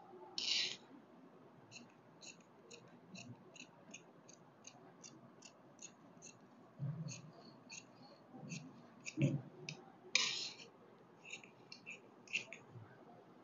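Tailoring scissors cutting through cloth along a chalk line: a steady run of short, crisp snips, about two a second. There are two longer, louder cuts, one about half a second in and one near ten seconds, and a few soft low knocks.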